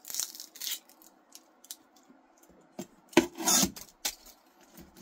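Dry, papery onion skin crackling and rubbing as it is peeled off by hand, in a few short bursts, the loudest a little past three seconds in, with light knocks on a plastic cutting board.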